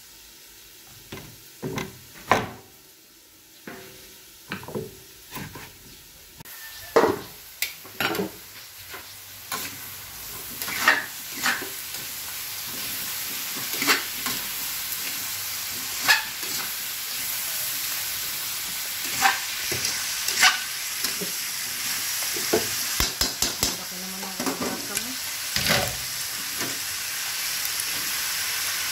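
Pinakbet vegetables (squash, long beans, eggplant) stir-fried in a metal wok: a spatula knocking and scraping against the pan, over frying sizzle that builds up after the first several seconds and then holds steady.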